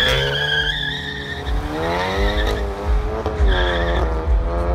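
Two cars, a VW Golf GTI Mk7 and an Audi S5 V8, launching in a drag race. The tyres squeal for the first second or so, then the engines climb in pitch, drop back at each gear change and climb again as they accelerate away.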